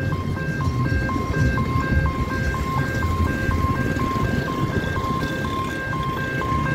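Electronic warning signal at a railway level crossing: a two-note beeping that alternates evenly, about twice a second. Underneath it, motorcycles, cars and auto-rickshaws run as they cross the tracks.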